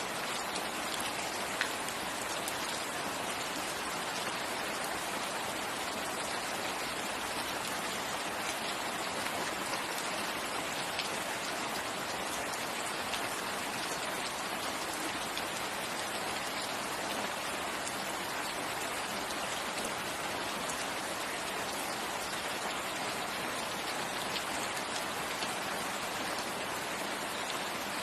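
Steady rain falling: a dense, even hiss with an occasional sharper drop ticking through.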